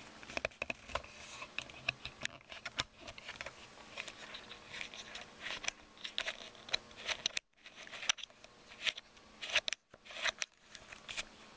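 Handling noise from the camera being fumbled against bedding: irregular scratching and rustling with many sharp clicks and crackles. The sound cuts out briefly twice, a few seconds apart in the second half.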